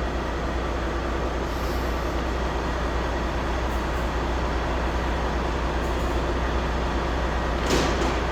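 Steady mechanical hum and noise of running machinery, with one short clatter near the end.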